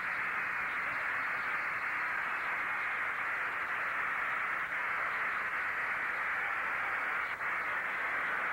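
A large crowd cheering in one steady, unbroken wash of sound, thin and band-limited through an old television recording.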